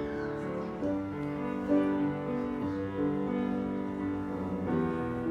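Slow instrumental keyboard music, sustained notes and chords changing about once a second.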